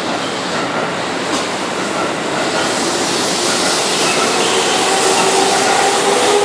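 Keihan electric commuter train moving along the station platform, a steady rumble of wheels on rail that grows louder toward the end. A faint motor hum rises slowly in pitch from about halfway through as the train gathers speed.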